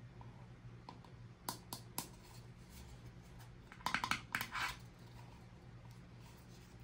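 Small hard toy pieces being handled by hand. There are three light clicks about a second and a half in, then a quick cluster of clicks and rustling around four seconds in, over a low steady hum.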